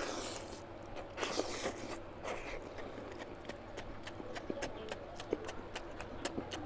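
Close-miked wet chewing and lip-smacking of oily mutton curry and rice, a fast, irregular run of sharp mouth clicks, with a few short hissing sounds in the first two seconds.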